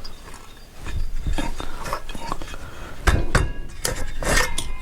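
Metal parts of a Benelli engine and hand tools clinking and knocking together as the engine is taken apart by hand, a run of separate clinks with the loudest knock about three seconds in.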